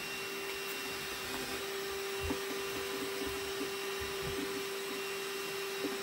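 A steady electrical hum with a few soft, dull knocks as the plastic motor head and bin of a wet/dry vac are handled.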